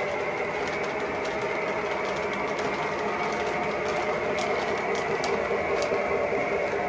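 Lionel O gauge train rolling past on three-rail tubular track: a steady whirring rumble of metal wheels on the rails and the locomotive's motor, with scattered light clicks.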